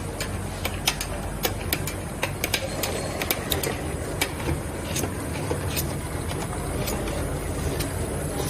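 Automatic liquid filling and capping line running: a steady machine hum with many irregular sharp clicks and clacks, a few each second.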